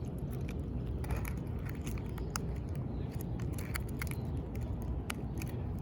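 Scattered small clicks and taps of hands and a tool handling a hooked horseshoe crab, over a steady low rumble.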